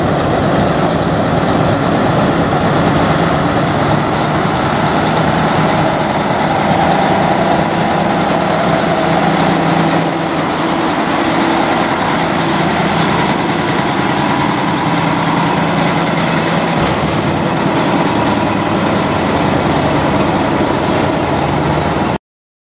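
Heavy diesel engine of a Mack semi-truck tractor idling and running steadily at low speed, a deep even hum. The sound cuts off suddenly near the end.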